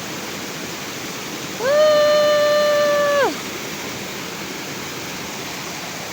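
Waterfall rushing steadily. About one and a half seconds in, one long pitched call glides up, holds level for about a second and a half, then drops away.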